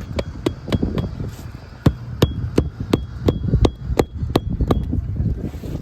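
Hammer driving roofing nails into shingles by hand: quick repeated strikes, about three a second, with a short pause about a second in. Each blow has a light metallic ping.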